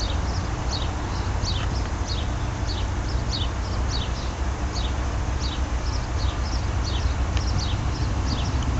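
Birds chirping over and over in short, high, downward-falling notes, about two or three a second, over a steady low rumble.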